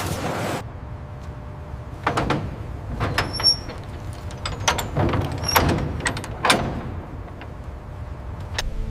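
A series of irregular knocks and clatters, several seconds long, with a couple of brief high squeaks among them, over a low steady hum. A rushing noise cuts off suddenly just after the start.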